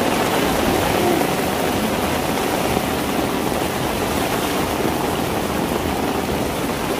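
Heavy rain pouring steadily onto a tiled rooftop terrace, an even rush of water with no let-up.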